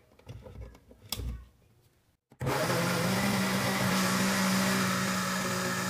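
A few light knocks, then about two and a half seconds in a countertop blender's motor starts abruptly and runs steadily with a low hum, blending a thick banana smoothie.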